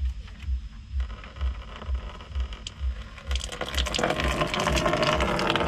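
Radiator coolant beginning to pour from a loosened plastic drain cock, splashing into a plastic drain tray: faint clicks as the drain cock is turned by hand, then about three seconds in the flow starts and becomes a steady splashing rush. A low regular pulsing about twice a second sits underneath.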